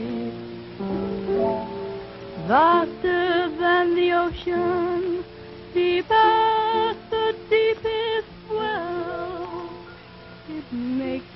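A woman singing in a classically trained style with wide vibrato over a soft instrumental accompaniment. About two and a half seconds in she sweeps up to a high held note.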